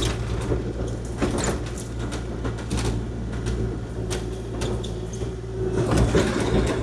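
Kubota KX040-4 mini excavator's diesel engine running steadily while it plows snow, with irregular knocks, clanks and scrapes from the machine and its blade working against the snow and gravel.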